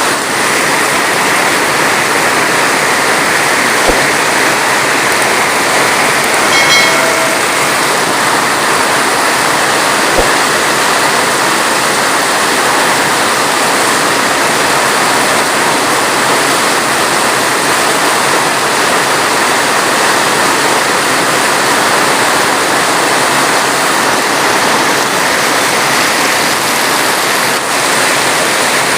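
Heavy rain falling steadily in a constant dense hiss, with no thunder. A short, faint pitched sound comes about seven seconds in.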